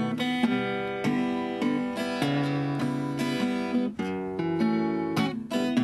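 Acoustic guitar playing alone: strummed and picked chords in an instrumental break of a sung song.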